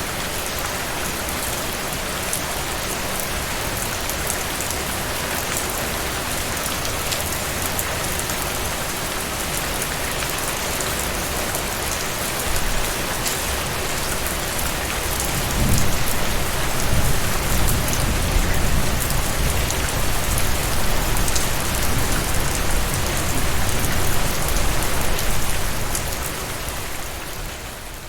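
Steady heavy rain falling, an even hiss. About halfway through, a deep low rumble joins it and runs through most of the rest.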